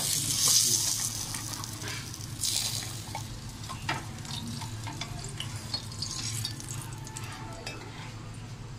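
A paratha sizzling in a greased frying pan. The hiss is loudest in the first second or so and flares again briefly, with a few short knocks after that.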